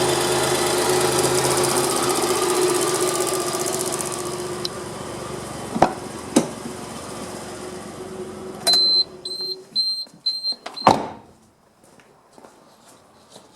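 Suzuki Cappuccino's small engine idling steadily, then growing quieter and stopping about ten seconds in. Two sharp clicks come midway, followed by a run of short high-pitched beeps and a loud clack near the end.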